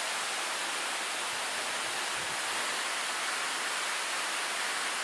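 Steady, even rushing hiss of outdoor background noise, with nothing standing out.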